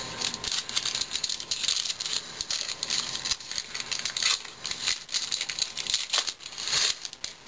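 Foil wrapper of a Topps baseball card pack crinkling and crackling as it is handled and torn open, in a dense run of quick irregular crackles.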